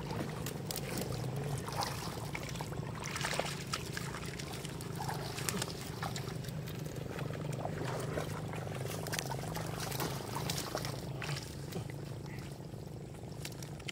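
Hands and fish splashing and sloshing in shallow muddy floodwater among grass, with many short irregular splashes, over a steady low hum.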